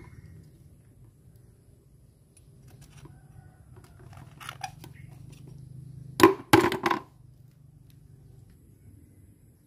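Oysters being shucked with a metal spoon: faint clicks and scrapes of spoon on shell, then a short clatter of loud, sharp shell knocks about six seconds in.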